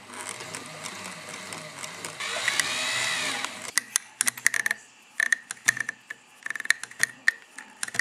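Mechanism of a stripped-down IKEA SY sewing machine running, with a whine that rises and falls about two seconds in. From about four seconds in it gives way to irregular sharp metallic clicks and clacks.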